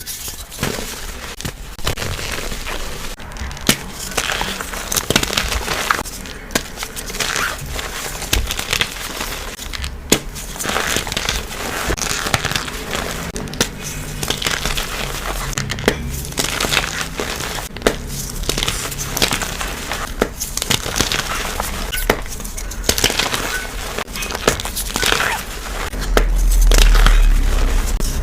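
Blocks of pressed chalky powder being crushed and crumbled by hand: a dense, irregular crackling crunch with sharp snaps. A louder low rumble comes in near the end.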